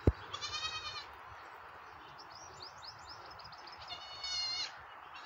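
Goat kid bleating twice: a high-pitched bleat just after the start and a louder one about four seconds in. Small birds chirp briefly in between, and a sharp knock sounds right at the start.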